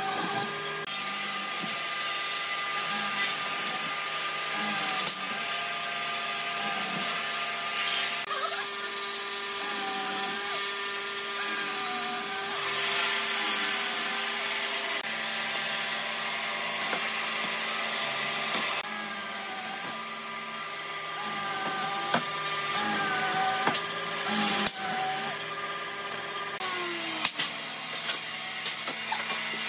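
Electric power tools running while cutting or working wood, a steady motor whine over a hissing noise. Near the end the whine drops in pitch as a motor winds down, followed by a few sharp clicks.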